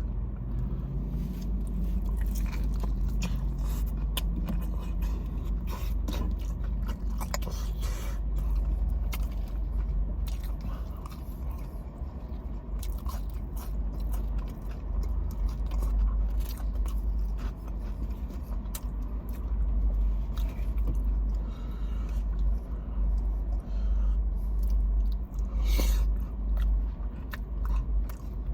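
Close-up biting and chewing of Dave's Hot Chicken fried chicken, with many small crunches and scrapes, over a steady low rumble.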